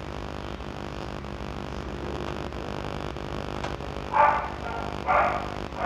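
A dog barking twice, about a second apart, over a steady low electrical hum.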